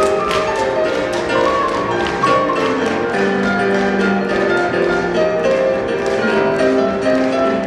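Rock and roll music with a steady quick beat under a melody of held notes.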